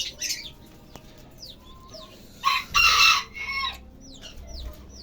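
Caged finches and budgerigars chirping with short, falling calls. About halfway through comes a loud, harsh bird call lasting just over a second, the loudest sound here.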